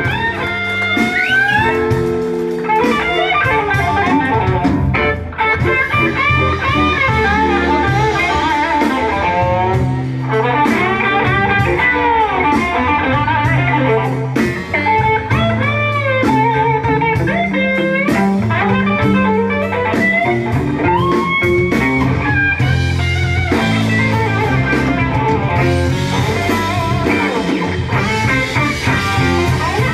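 Live blues band playing an instrumental passage: an electric guitar leads with bent notes over bass and drums.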